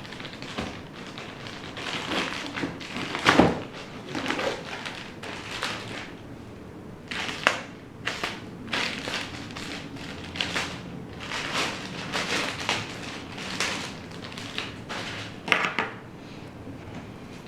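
PC parts and their packaging being handled by hand: a run of knocks, taps and rustles, the loudest knock about three seconds in.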